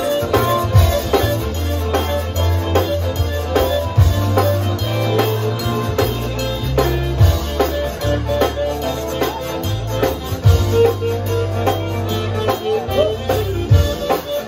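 Live zydeco band playing an instrumental stretch with no singing: a steady, loud dance beat on drum kit, a walking bass line and electric guitar.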